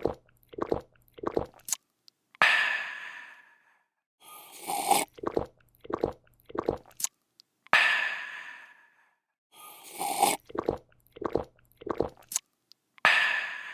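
A person slurping a drink, swallowing it in four or five quick gulps, then letting out a long, fading refreshed "aah". The slurp–gulp–aah sequence repeats three times at an even pace.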